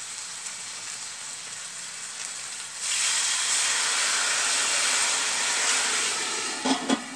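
Pork leg sizzling in hot fat in an aluminium pot; about three seconds in, water is poured onto it and the sizzle jumps to a loud steaming hiss. A few short knocks near the end as the pot's lid goes on.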